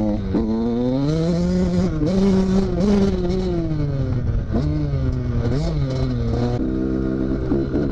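2012 KTM SX 85's two-stroke single-cylinder engine running while being ridden, revs climbing and falling with the throttle. There are two short throttle blips past the middle, and near the end it settles to a lower, steady note.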